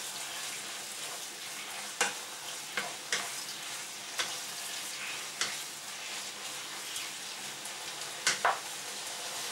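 Pork belly cubes sizzling in oil in a frying pan over high heat, stirred with a wooden spatula that knocks and scrapes against the pan now and then.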